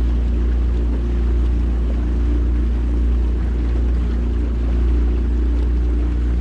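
9.9-horsepower outboard motor on a small jon boat running steadily under way, a loud, even drone.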